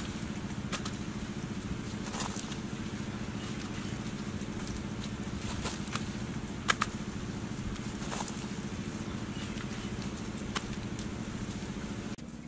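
A steady low hum throughout, with a few short, sharp slaps and clicks of handfuls of wet mud being pressed onto a bamboo-framed wall, the sharpest about two-thirds of the way in.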